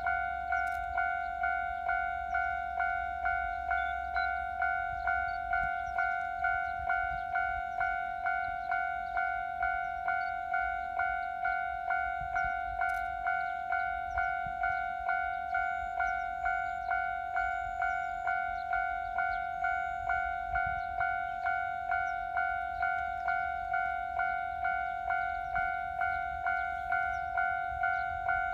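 Japanese railway level-crossing warning bell ringing in a steady, even rhythm, a little faster than one strike a second, signalling that a train is approaching the crossing.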